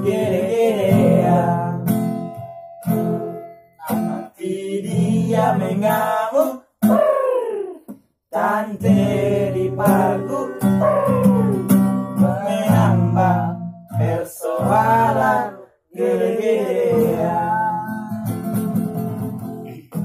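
A Batak song: two nylon-string acoustic guitars playing chords, with a voice singing the melody over them in phrases with short breaks between.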